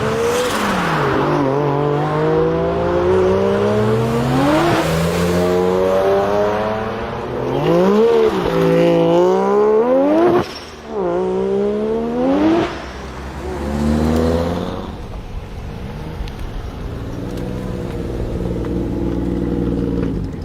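Twin-turbo Mazda RX-7 rotary engine revving up and dropping back several times, with one sudden drop about ten seconds in, then settling to a steadier, lower note for the last few seconds.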